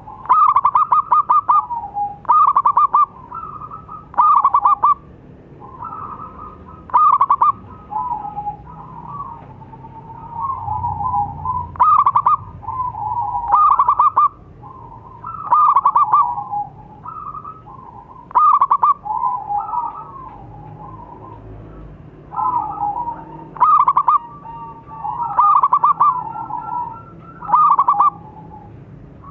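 Zebra dove (perkutut) singing its cooing song: loud phrases of quick, rolling coos repeated every one to three seconds.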